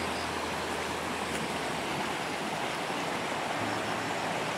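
Steady rush of water from a small waterfall and its stream running over rocks.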